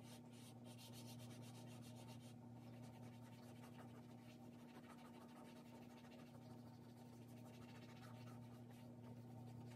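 Faint scratching and rubbing of charcoal on drawing paper as shading is laid in and smudged by hand, in many short strokes. A steady low electrical hum runs underneath.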